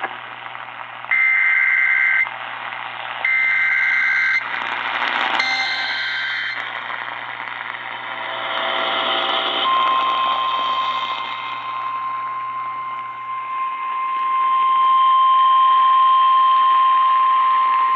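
NOAA Weather Radio SAME alert header: three bursts of warbling two-tone data, each about a second long, then, about ten seconds in, the long steady 1050 Hz warning alarm tone, all under radio static. The sequence announces a new weather warning broadcast.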